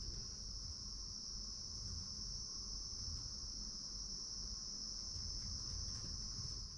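Insects trilling in one steady, unbroken high-pitched drone, with a faint low rumble beneath.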